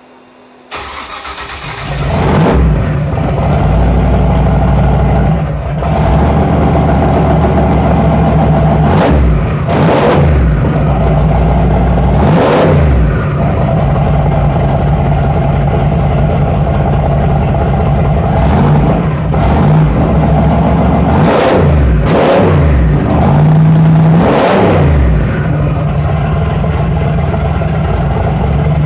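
Chevrolet S10 pickup's carbureted engine starting about a second in, then running loudly, with a series of quick throttle blips that send its pitch up and back down.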